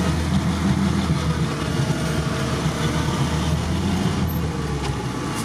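A UAZ off-roader's engine, heard from inside the cab, running steadily with a low drone as the vehicle is driven along.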